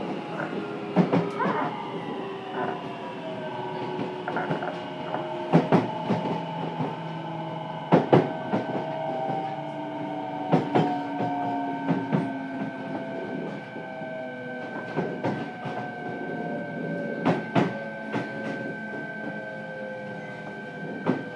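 Inside a Fukuoka City Subway 1000N-series car, the Hitachi two-level IGBT VVVF inverter and traction motors whine with several tones that slowly fall in pitch as the train slows, under braking. A steady higher tone joins about five seconds in. Wheel clicks over rail joints come further apart as the speed drops.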